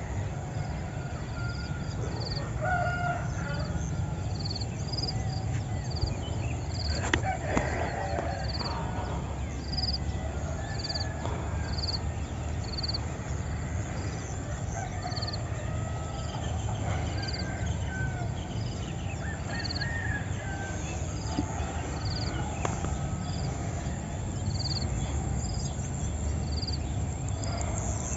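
Village morning soundscape: roosters crowing in the distance among assorted birdsong, with a high, thin note repeating about once a second throughout. A steady low rumble runs underneath.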